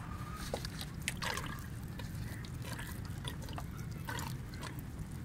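Water trickling and dripping from a plastic bottle with a perforated cap onto potting soil and tomato leaves, in irregular little splashes.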